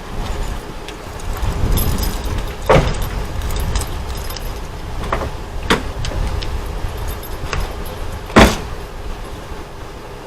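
Handling noise in and around a parked car: keys jangling, rustling and a few sharp knocks of car doors and fittings, the loudest about eight seconds in.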